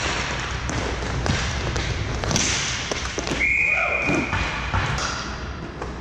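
Inline roller hockey play in an indoor rink: a steady rolling rush of skate wheels on the plastic court floor, punctuated by sharp clacks and thuds of sticks and puck. Past the middle a high-pitched tone is held for over a second, with players' calls around it.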